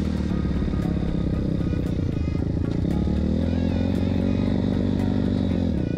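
160 cc KLX-type pit bike four-stroke engine, converted to a four-valve head, running under load as the bike is ridden; its revs climb about halfway through and fall away near the end. Background music plays underneath.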